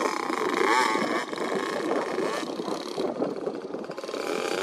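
Motocross dirt bike engines running, their pitch rising and falling as the throttle is opened and closed.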